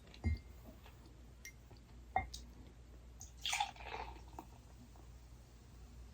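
Two sharp taps, then a short liquid sound of beer, under a second long, about three and a half seconds in.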